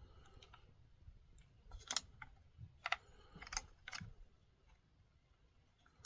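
Light clicks and taps of small plastic chainsaw parts being handled as fuel lines are fitted to a new primer bulb, about half a dozen sharp clicks in a cluster in the middle.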